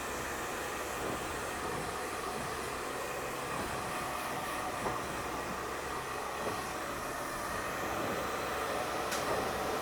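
Steady whooshing hum of an electric fan running in a barbershop, with a single sharp click about nine seconds in.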